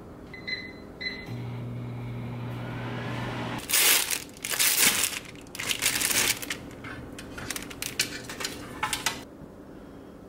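Two short electronic beeps from a kitchen appliance's control panel, then a steady low hum for about two seconds. After that, a plastic bread bag crinkles loudly and irregularly as it is handled and opened.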